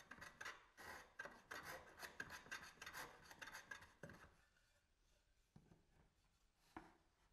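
Shoulder plane shaving the shoulder of a wooden tenon: a faint run of short scraping strokes, about two or three a second, over the first four seconds, trimming a joint that was too tight. A single light knock follows near the end.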